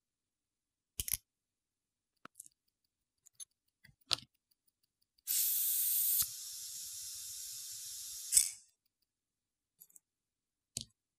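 Small sharp clicks of a watchmaker's screwdriver on the screws of a steel watch case, then a steady hiss of about three seconds. The hiss is loud for its first second, quieter after that, and ends with a sharp click; it is the loudest thing heard.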